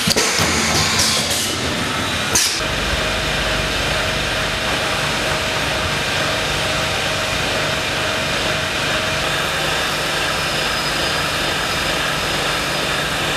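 Pneumatic aerosol filling machine for freon cans at work: a few sharp clacks, some with a hiss of air, in the first couple of seconds. Then, after an abrupt change, a steady machine hum with a faint constant tone.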